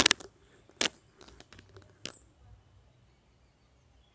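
A few short crinkling, rustling crackles, loudest at the start, from sarees and their wrapping being handled, then quiet room.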